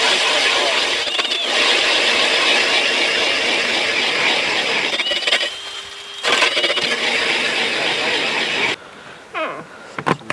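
Powered ice auger drilling a hole through lake ice, its motor running hard with a high whine. It eases off briefly about halfway, runs up again, then stops about nine seconds in.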